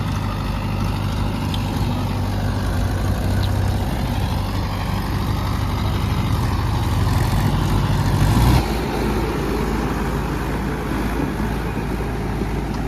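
Tractor engine running steadily with a low hum. It builds slightly, then drops back abruptly about eight and a half seconds in and carries on steadily.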